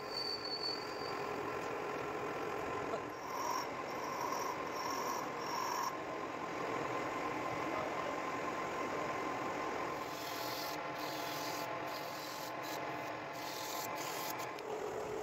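Metal lathe working a spinning piece of solid aluminium: a steady noisy scrape of metal on metal, with a faint machine hum under it. A series of sharp ticks comes in the last few seconds.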